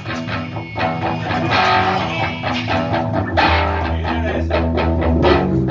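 A rock band playing live in a rehearsal room: electric guitars and bass guitar over a drum kit, with sharp strummed and struck attacks throughout. Past the middle, the bass holds one low note for about two seconds.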